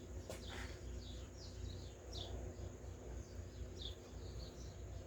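Birds chirping in the background: short, quick downward chirps repeated every second or so over a steady low outdoor rumble.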